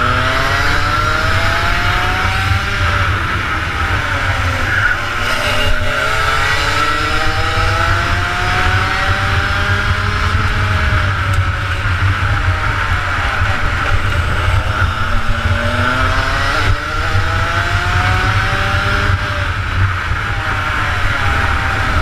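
Rotax Max 125cc two-stroke kart engine at racing speed, its revs climbing steadily on the straights and falling away sharply as the kart slows for corners, about five seconds in and again near sixteen seconds.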